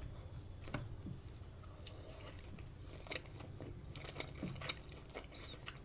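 Faint, close-up chewing of a mouthful of imitation black pudding: scattered soft, wet mouth clicks and smacks.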